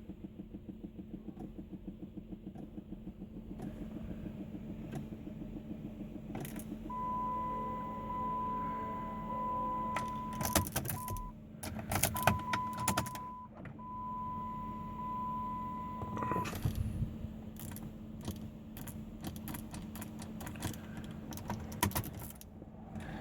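Rapid, even clicking from the rear of a 2007 Chrysler 300C that won't start, the sign of a weak battery; a new battery got it starting. About seven seconds in, a steady electronic beep sounds for several seconds, broken twice, mixed with keys jangling and sharp clicks.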